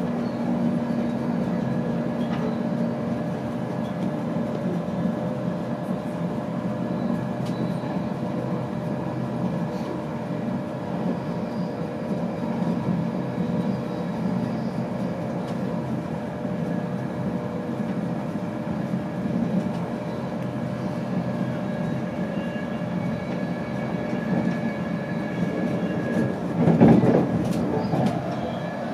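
Interior running noise of an InterCity 225 Mark 4 passenger coach at speed: a steady rumble of wheels on rail with a few faint steady hums. Near the end it briefly grows louder.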